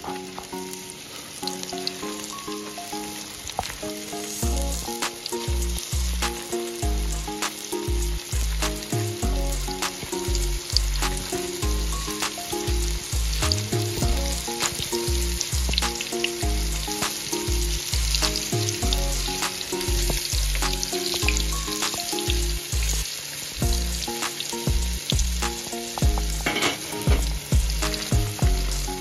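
Fish deep-frying in a pot of oil over a campfire: a steady sizzle with frequent small pops. Background music with a melody and a steady bass beat plays over it, the beat coming in about four seconds in.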